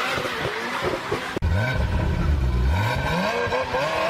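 Ferrari F40's twin-turbo V8 revving and accelerating, the engine note sweeping up and down. About a second and a half in, the sound cuts abruptly to a deeper, louder run of revs that climbs in pitch.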